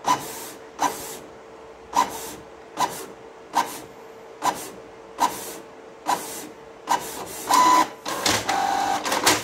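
Canon PIXMA E477 inkjet printer printing a page: a sharp mechanical click about every 0.8 seconds over a steady hum. Near the end the motor runs for two longer stretches with a whine as the page is fed out.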